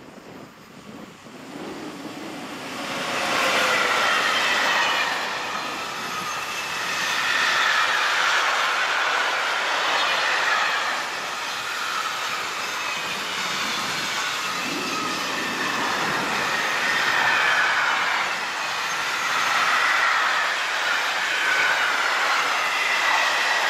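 Container freight train hauled by an SNCF BB 22200 electric locomotive, running by close. The rolling noise builds over the first few seconds as the locomotive arrives, then the wagons go past steadily with a wavering high squeal from the wheels.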